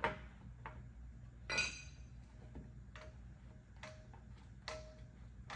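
Ironton ratcheting work clamps clicking as they are squeezed down to pull an aluminum gas tank panel into place: separate sharp clicks about once a second, one louder click about a second and a half in with a brief metallic ring.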